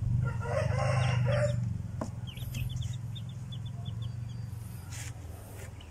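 An adult chicken calls for about a second, then Malaysian serama chicks give a run of short, high, falling peeps, about four a second, over a steady low hum.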